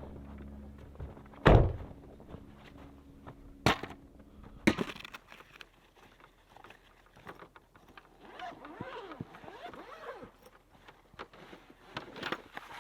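A steady low hum and a few heavy thunks and knocks, the loudest about one and a half seconds in; the hum cuts off suddenly about five seconds in, leaving quieter scattered clicks.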